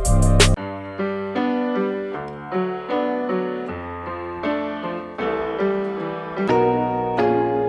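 Background music: soft piano or electric piano playing a slow sequence of struck notes and chords, each note fading after it is struck.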